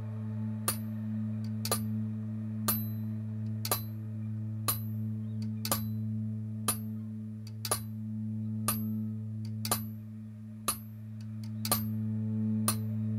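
Clock movement ticking about once a second, crisp metallic ticks with a couple of doubled ones, over a steady low musical drone.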